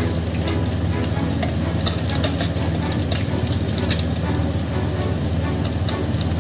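Obtuse barracuda frying in hot oil in a pan: a steady sizzle with frequent sharp crackles and pops, over a steady low hum.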